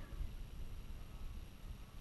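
Quiet outdoor background: a faint, uneven low rumble with light hiss and no distinct event.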